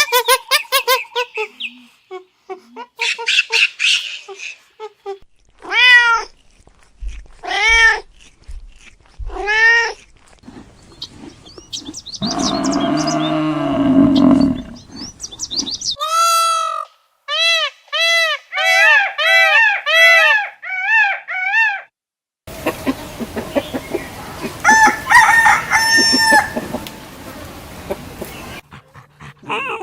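A run of separate farm animal calls edited one after another: short arching calls, a lower drawn-out call in the middle, then quick repeated calls, and near the end more calls over a steady background noise.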